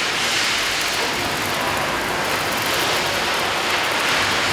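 Steady hiss of an electric welding arc at the torch of a wall-climbing welding robot as it runs a seam on a steel wall.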